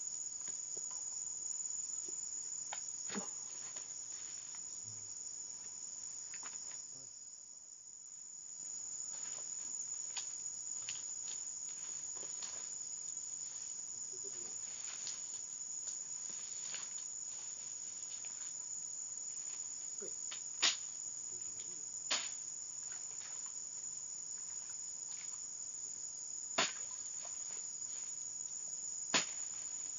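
Steady high-pitched chorus of forest insects, briefly muffled about seven seconds in. A few sharp clicks stand out over it in the last ten seconds.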